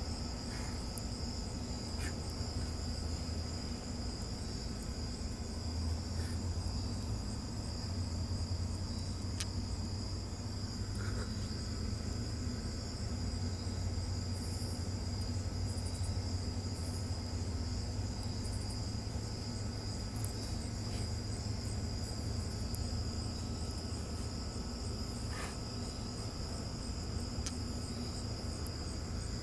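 Crickets trilling steadily in one continuous high note, with a low steady hum underneath.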